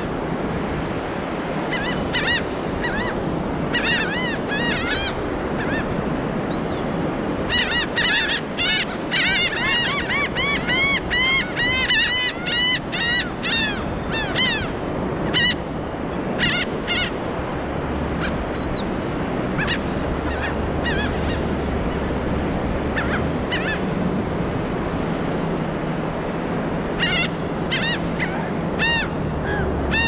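Laughing gulls calling over steady surf: many short, arching cries that build into a fast, continuous run a few seconds in (the species' laughing call series), then thin to scattered calls and pick up again near the end.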